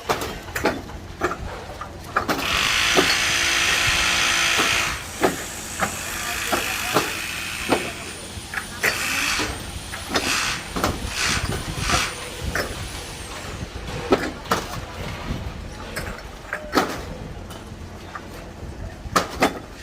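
Heavy construction machinery with an engine rumbling low and steady, a loud hiss of released air about two seconds in that lasts some two and a half seconds, then repeated short metal knocks and clanks with a faint high squeal in the middle.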